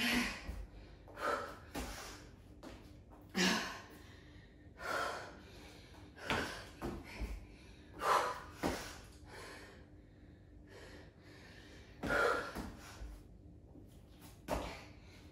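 A woman breathing hard from exertion: sharp, gasping breaths, one every second or two, at an uneven pace.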